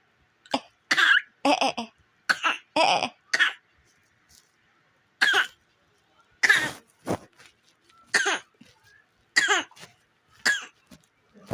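A dozen or so short coughs, some in quick runs of two or three and others spaced out by a second or more. The coughing is used as a call, a signal to get someone's attention.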